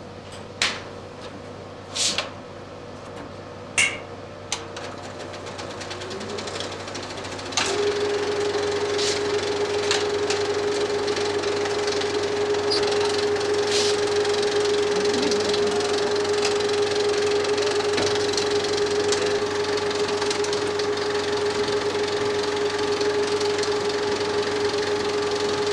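35 mm film projector: a few sharp clicks as it is handled, then about seven and a half seconds in its mechanism starts and runs steadily with a constant hum, pulling the film through at 24 frames a second.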